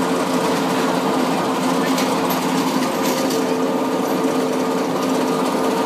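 Ropeway station machinery running: the lift's bullwheel and drive turning the haul cable, a loud, steady mechanical hum with a low whine.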